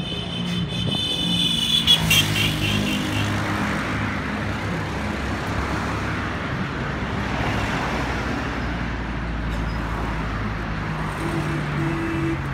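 Road traffic: cars and minibuses driving past on a busy street, a steady wash of engines and tyres. A high-pitched squeal sounds for the first few seconds, wavering before it fades.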